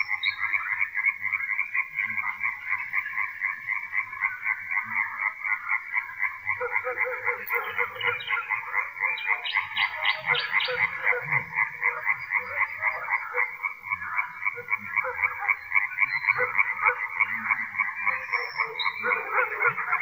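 Dense chorus of frogs croaking, many pulsing calls overlapping into a steady rhythmic din, with a deeper croak joining about a third of the way in. Faint high notes of a common nightingale come through above the chorus now and then, a short run of repeated notes around the middle.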